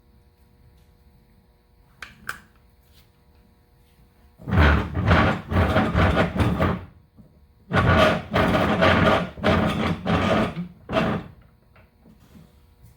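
Two loud stretches of dense knocking and scraping, each a few seconds long, from parts being handled and worked on, after a couple of light clicks.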